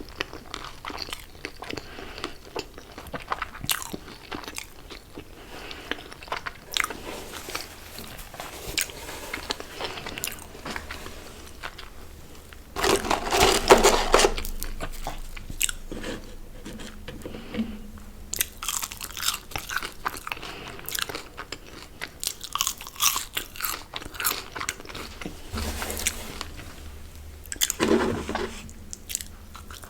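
Close-miked chewing and crunching of fast food, with a run of small wet clicks and crackles and louder bursts of crunching about thirteen seconds in and again near the end.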